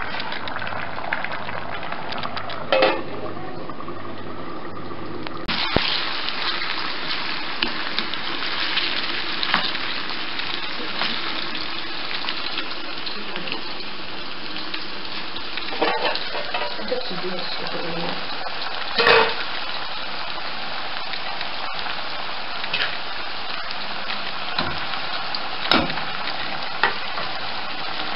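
Chicken and sauce sizzling and bubbling in an aluminium pot on a gas stove, a steady hiss that grows fuller about five seconds in. A few sharp knocks and clinks against the pot break through it, the loudest a little past the middle.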